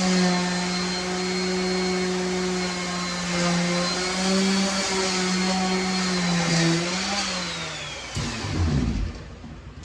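An electric motor running steadily with a high whine, then switched off about seven seconds in and winding down, falling in pitch, with a low rumble as it stops.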